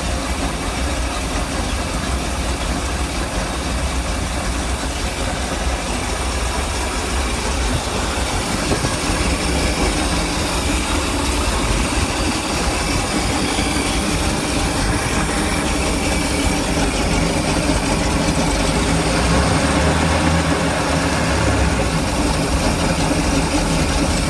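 Mercruiser 454 big-block V8 marine engine idling roughly, growing slightly louder over the second half.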